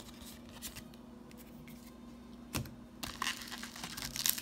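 Foil Yu-Gi-Oh booster pack wrapper being torn and crinkled, with scattered light rustles and taps. The crinkling is busiest in the last second and a half.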